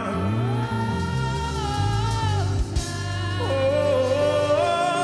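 Live gospel worship song: a singer holding long, sliding notes over keyboard accompaniment, the voice breaking off about two and a half seconds in and coming back on a new held note near the end.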